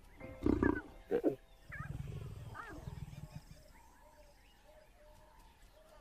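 Lions calling: two short, loud calls within the first second and a half, then a lower rumbling call lasting about a second and a half.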